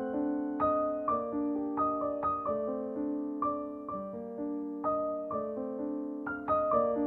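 Soft background piano music: notes and chords struck in a gentle succession, about two a second, each ringing and fading.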